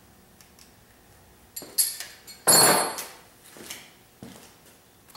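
Workshop handling noises: a couple of light knocks, then a louder clatter about two and a half seconds in, followed by a few softer knocks.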